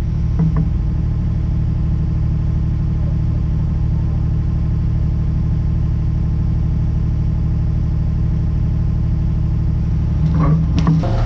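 An engine running steadily at an even speed, with a few metallic clanks near the end.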